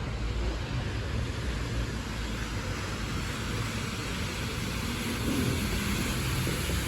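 Road traffic on a wet street: a steady low engine rumble with an even hiss of tyres on wet tarmac.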